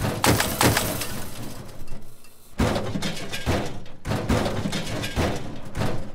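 Wall-smash sound effect: a run of crashing, crumbling impacts as chunks of a wall break and tumble down, easing off briefly about two seconds in before more hits.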